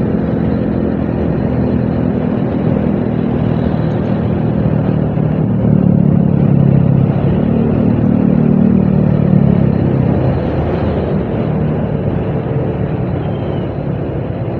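Motorcycle engine running steadily under way, with wind and road noise on a helmet-mounted microphone. The engine grows a little louder about six seconds in and eases off after about ten seconds.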